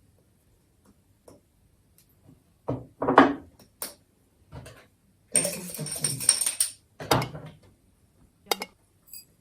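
Kitchen handling sounds as sugar is spooned into a hollowed-out black radish: scattered clicks and knocks of a spoon against dishes, with a noisier stretch of about a second and a half in the middle.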